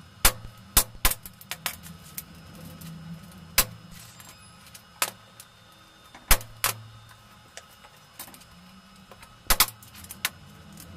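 Sharp metallic clinks and taps as a steel roller chain and a nail are handled and knocked against a steel plate, about a dozen irregularly spaced clinks, some in quick pairs. A faint low hum runs underneath.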